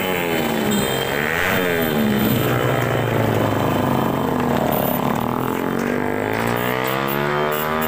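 Motorcycles and cars driving past close by one after another, their engines running, the sound swelling and falling away with each pass.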